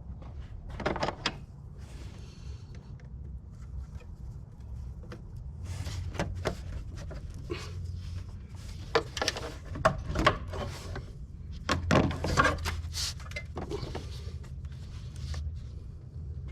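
Cold air intake being worked off the engine by hand: scattered plastic clunks, clicks and rustling as the tube and fittings are pulled loose, busiest in the middle of the stretch, over a steady low rumble.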